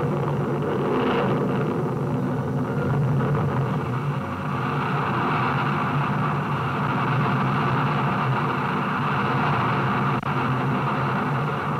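Rocket sled's rocket motors firing during a high-speed track run: a loud, steady rushing noise over a low hum, with one brief dip about ten seconds in.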